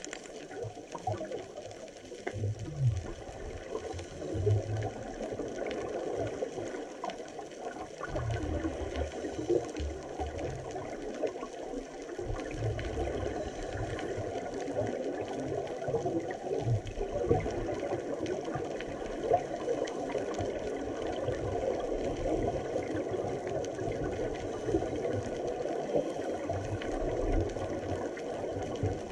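Underwater ambience recorded by a submerged camera: a steady crackling hiss with irregular low rumbles and thuds.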